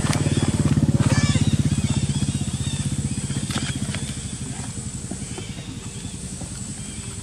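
A small engine running with a fast, even pulse, loudest about a second in and then fading steadily away.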